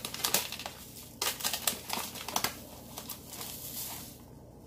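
A tablespoon scooping granulated sugar: a gritty, crunching rustle with many small clicks for about two and a half seconds, then dying away.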